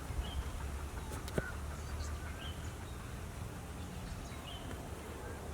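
A bird giving short chirps every second or two over a steady low rumble, with one sharp click about a second and a half in.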